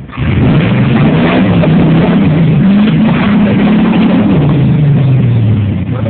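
1987 Jeep Wrangler YJ's 5.7 Vortec V8 running loud, revving up sharply just after the start and held at high revs with the pitch wavering, then dropping near the end. The open-diff Jeep is spinning its tyres on damp soil as it struggles up a steep rock-and-dirt climb.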